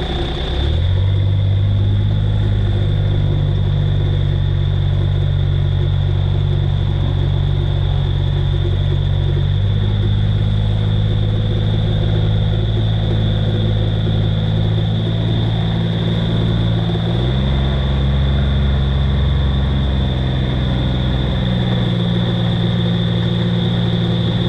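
A vehicle engine running steadily at low revs, its pitch stepping up to a new steady note a few times. A steady high whine sits above it.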